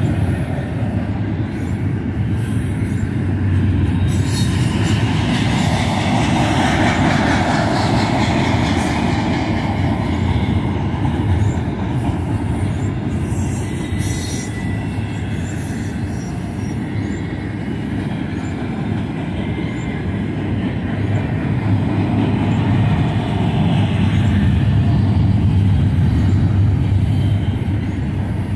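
BNSF double-stack container train's well cars rolling past: a steady rumble of steel wheels on rail that swells and eases a little. A faint, thin wheel squeal shows around the middle.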